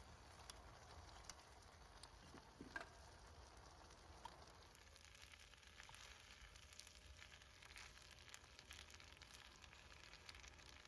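Faint sizzling and crackling of food frying in a pan.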